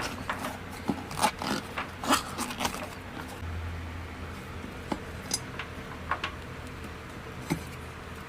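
Rubber inner tube being shoved and worked into a tiller tire on its wheel: scattered rubbing, squeaks and light knocks, busiest in the first three seconds and sparser after. A low steady hum comes in about three and a half seconds in.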